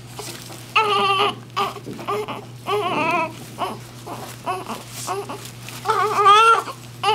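A newborn baby crying in repeated wavering wails, the strongest about a second in, about three seconds in and about six seconds in, with shorter whimpers between. A steady low hum runs underneath.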